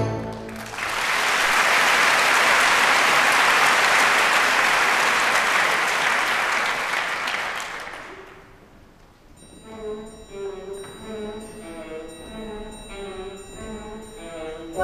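Theatre audience applauding after the orchestra's closing chord, the applause fading away after about eight seconds. Then a soft orchestral passage starts with light, evenly repeated notes.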